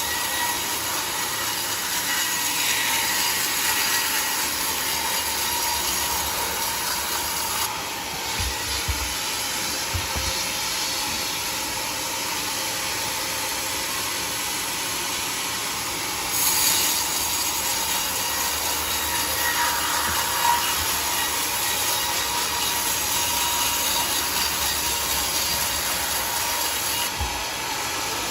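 Band sawmill running steadily, a constant mechanical hiss with a steady whine, changing in level about a quarter and half of the way through.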